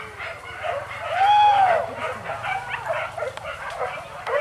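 Pack of boar-hunting dogs yelping and baying, with several calls overlapping. One long arched howl, rising and then falling in pitch about a second in, is the loudest.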